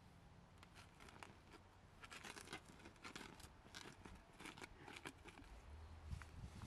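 Steel shovel scraping and scooping ash and soil off the round metal lid of an underground pit oven: a run of faint, irregular scratchy scrapes, coming more often from about two seconds in.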